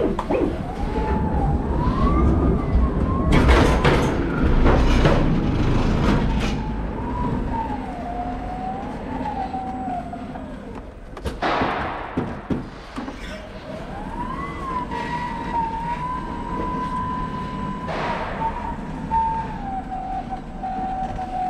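Electric pallet truck's drive motor whining, its pitch rising and falling as it speeds up and slows while moving a loaded pallet. Heavy rumbling and rattling from the wheels and load, loudest a few seconds in, with a sharp knock about eleven seconds in.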